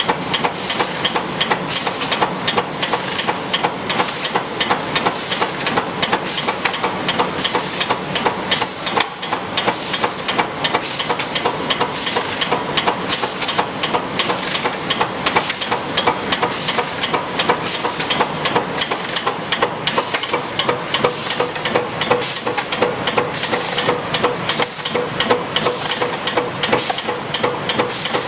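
Automatic spot welding machine for fan-guard inner rings running through its cycle: a steady hiss with a sharp clack about twice a second, over a faint steady hum.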